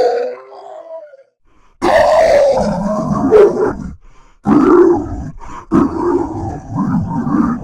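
Orc monster vocal sound effect: a call dies away, a short silence follows, then two long, loud guttural roars with a half-second gap between them.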